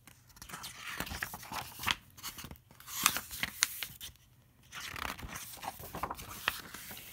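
Pages of a hardcover picture book being turned and handled: paper rustling and crinkling with small sharp taps, in about three spells.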